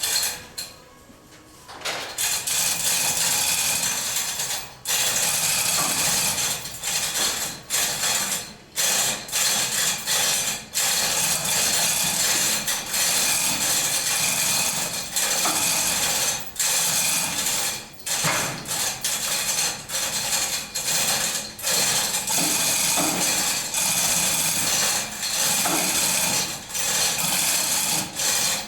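Loud mechanical ratcheting and tool noise, starting about two seconds in and running in spells with many short breaks, as the Scout II body is being taken off.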